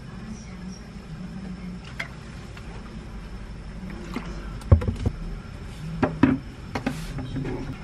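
Kitchen handling sounds as seasonings are measured with a wooden spoon and poured into a glass mug: scattered clicks of bottle caps and knocks of bottles and spoon on the counter and glass, the loudest knock about five seconds in, over a low steady hum.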